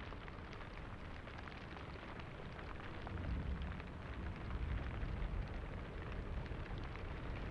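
Low ambient rumble under a steady crackling hiss; the rumble swells about three seconds in and eases off again.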